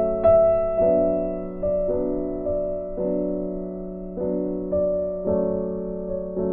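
Background piano music: notes and chords struck every half second to a second, each ringing on and fading.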